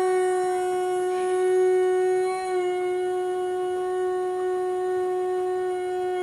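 Fire alarm sounding one unbroken, steady tone, with a slight wobble in pitch about two and a half seconds in.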